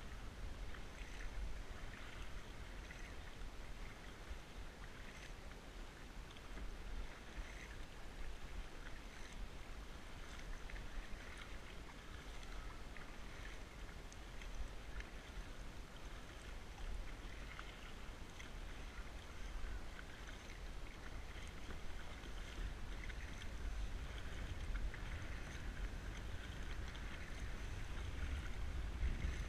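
Kayak paddle dipping and splashing in calm harbour water, with small splashes and drips at each stroke, over a low rumble of wind on the microphone.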